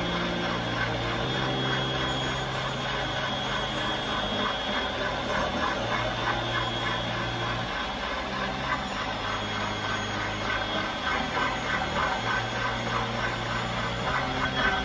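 Electric stand mixer running, its whisk whipping egg whites in a stainless steel bowl: a steady whir as the whites are beaten to stiff peaks.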